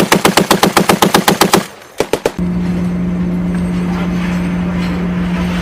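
Browning M2 .50 calibre machine gun firing a rapid automatic burst that stops about a second and a half in, then a short burst of three shots. After that a steady low hum, like an engine, takes over.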